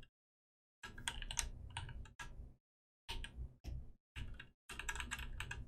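Computer keyboard keys clicking in several quick bursts, with complete silence between the bursts.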